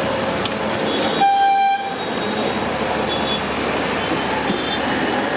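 Steady traffic noise with a single short horn toot, one steady tone held for about half a second, a little over a second in.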